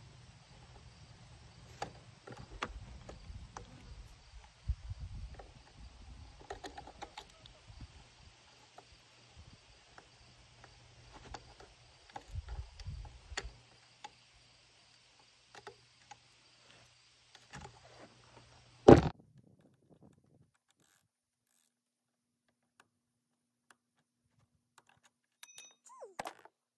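Scattered clicks, taps and small metallic knocks of hand tools and parts while a new brake lever is fitted to a dirt bike, over a low steady hum. About two-thirds of the way in comes one sharp, loud knock, after which only a few faint ticks remain.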